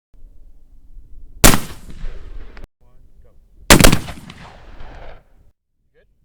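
Two shots from a .58 calibre 1861 Springfield black-powder muzzle-loading rifle, about two seconds apart, each a sharp crack followed by a long rolling echo. The first echo cuts off abruptly.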